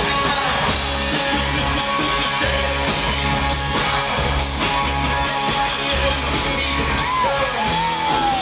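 Loud live rock music heard from the audience, with a pulsing low bass, guitar and singing.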